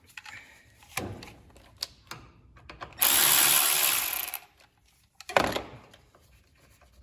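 A power tool runs in one burst of about a second and a half, with a single knock about a second after it stops and small clicks of tools and wires around it.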